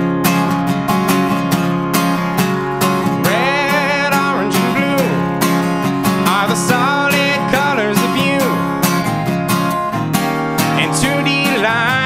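Acoustic guitar strummed in a steady rhythm, with a man's singing voice joining about three seconds in, in short phrases.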